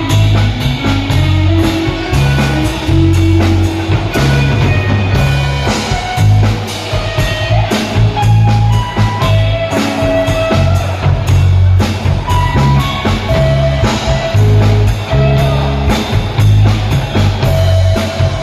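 A band playing loud rock-style music, with a drum kit, a pulsing bass line and guitar carrying a melody.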